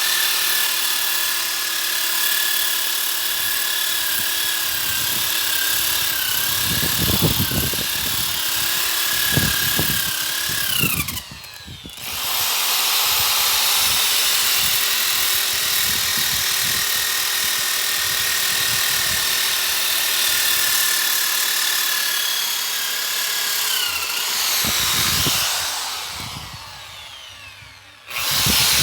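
Electric power tool spinning a 125 mm sanding disc against wood: a steady motor whine, with the disc scraping and knocking on the wood surface. Twice the motor is let off and winds down with a falling whine, about eleven seconds in and near the end, then speeds up again.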